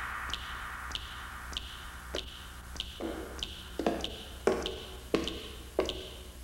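Footsteps on a hard floor, one about every two-thirds of a second, starting about two seconds in and growing louder as the walker approaches. A faint, evenly spaced ticking and a low hum run underneath.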